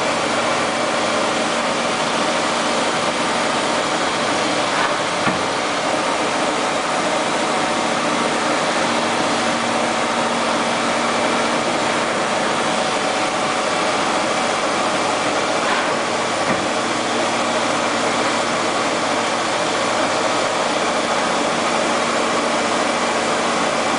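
Kitamura Mycenter 2 CNC vertical machining center running under power, a steady mechanical hum and whir with a few held tones in it. Two faint clicks come through, about five seconds in and again past the middle.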